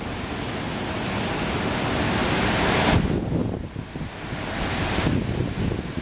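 Ocean surf rushing, with wind buffeting the microphone. The rush swells to a peak about halfway, drops off sharply, then builds and falls away again near the end.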